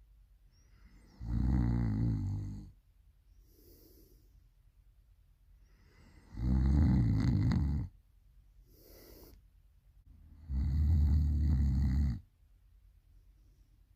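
A person snoring loudly: three long, rough snores about four to five seconds apart, each lasting about a second and a half, with a soft breathy exhale between them.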